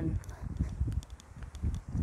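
Wind buffeting the microphone in an uneven low rumble, with faint footsteps on a paved path.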